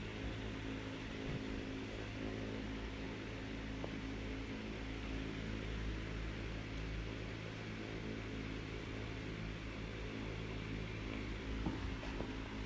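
A steady low hum, like a small motor or fan running.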